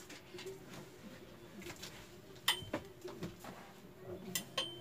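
A few sharp clicks or taps, about two and a half seconds in and twice near the end, over a faint steady hum.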